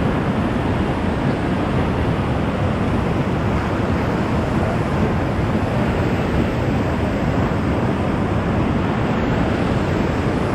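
Whitewater rapids rushing loudly and steadily around a raft running the river.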